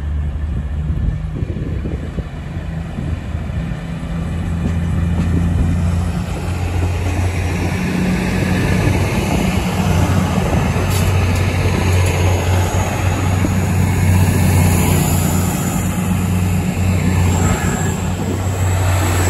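East Midlands Railway Class 222 Meridian diesel multiple unit running past close by along the platform. Its underfloor diesel engines drone steadily with a low pitch, and the sound grows louder about four seconds in as the coaches draw level.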